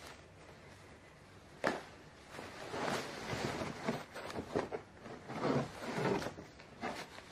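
Clothes being pulled out of a torn plastic-wrapped parcel: irregular rustling of fabric and packaging, with one sharp knock a little under two seconds in.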